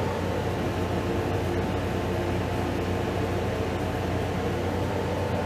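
A steady mechanical hum: a low drone with an even hiss over it, unchanging throughout.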